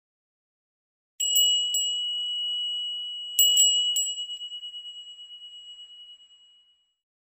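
A small high-pitched bell rung in two sets of three quick strikes about two seconds apart, its single pitch ringing on and fading with a wavering decay.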